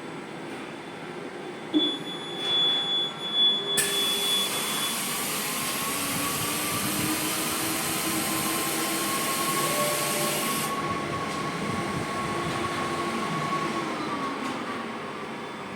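Atexco Model X Plus digital printing machine running with a steady mechanical noise and faint whining tones that slide in pitch. A few clunks come about two seconds in, then a louder stretch with a strong hiss from about four to eleven seconds in.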